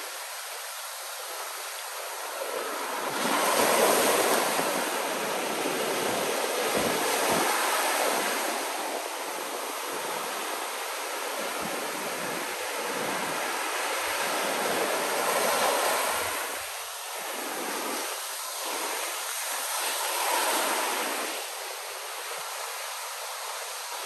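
Ocean surf breaking on a sandy beach: a steady hiss of waves that swells and eases every few seconds, loudest about four seconds in.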